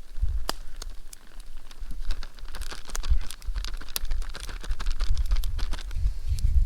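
Plastic bag crinkling and rustling in irregular clicks as it is handled, as when fried donuts are shaken in it with powdered sugar.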